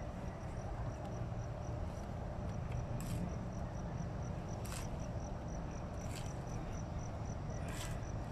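Four short scrapes of steel masons' trowels on wet cement and concrete, over a steady high insect chirp repeating about three times a second and a low rumble.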